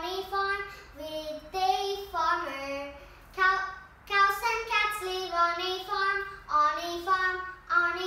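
A young girl singing a nursery rhyme about farm animals, unaccompanied, in short phrases of held notes.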